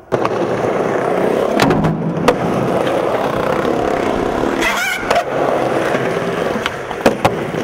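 Skateboard wheels rolling on smooth concrete with a steady rumble, broken several times by sharp clacks of the board.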